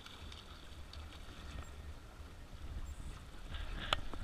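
Wind rumbling on the microphone and water lapping against a small boat's hull on choppy water, with one sharp knock near the end.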